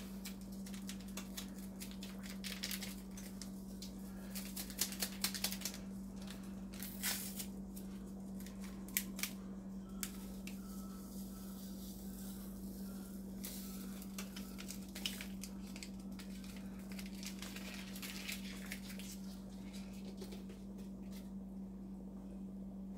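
Small foil-lined Sazón Goya seasoning packets crinkling and tearing as they are opened and emptied, heard as scattered bursts of crackly clicks. A steady low hum runs underneath.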